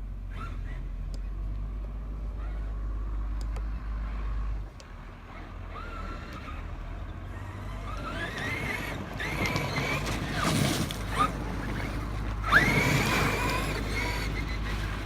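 Brushless electric motor of a Traxxas X-Maxx 8S RC monster truck whining up and down in several bursts of acceleration, the loudest about two-thirds of the way in and again near the end, with rushing tyre noise. Steady low wind rumble on the microphone throughout.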